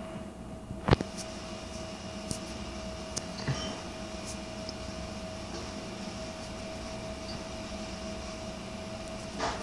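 Indoor room tone: a steady hum with one held tone, a sharp click about a second in, a few lighter ticks, and a brief rustle near the end.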